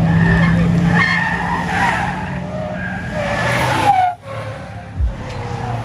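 Car tyres squealing as a car is driven hard in a slide, over the steady note of its engine. The squeal drops away suddenly about four seconds in, and a low thump follows near the end.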